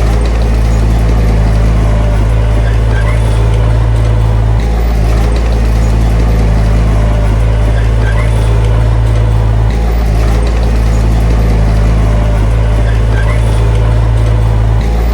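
Heavy diesel engine of earthmoving machinery running steadily with a deep, even hum and a slight dip in the drone about every five seconds.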